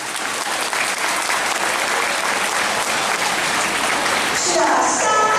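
Audience applause that swells and holds steady, with a voice beginning over it near the end.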